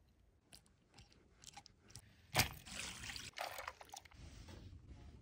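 Wet handling of raw whiting: scattered small clicks, a sharp knock about two seconds in, then about a second of wet sloshing and squelching.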